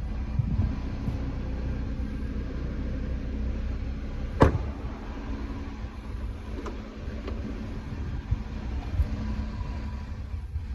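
An Audi RS 3's rear door shut with one solid thump about four seconds in, over a steady low rumble. A few lighter clicks of handling the doors follow.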